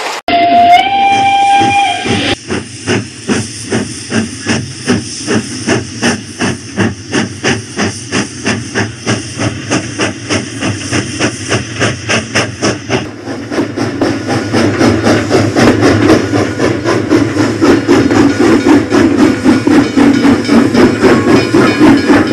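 Battery-operated toy steam train's sound effect: a whistle lasting about two seconds, then a rhythmic chuffing at about two to three beats a second, which gives way about halfway through to a steadier, denser running sound.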